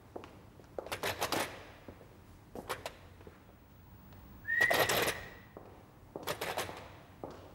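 Hundreds of small magnet-driven pixels on the 4D-Pixel wall clattering in four quick bursts of rapid clicks as they react to sound. About halfway through, a short whistle rises and then holds.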